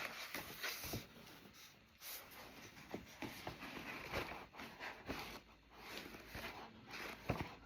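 Faint handling sounds of a large, heavy hardback book: soft paper rustles and scattered small clicks and taps.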